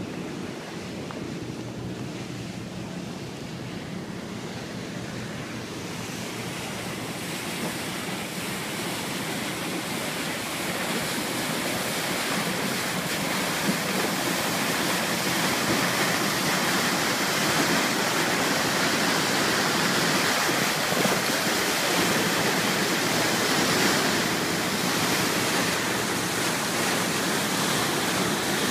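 Sea water rushing and churning against the hulls as a pilot boat runs alongside a tanker, its bow wave and wake foaming between them. The rushing grows louder over the first half and then holds steady.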